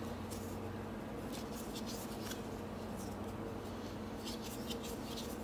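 Quiet room tone with a steady low hum and a few faint scrapes and clicks from a wooden spatula stirring thick hard wax in a metal wax-warmer pot.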